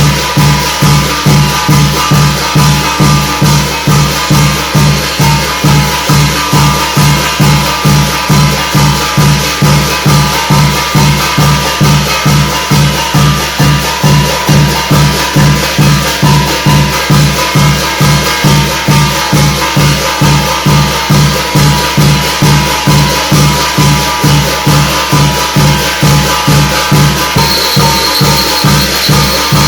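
Korean shamanic gut ritual music: a drum beats a fast, even rhythm of about two to three strokes a second, with rattling percussion and held tones over it. A high ringing tone joins near the end.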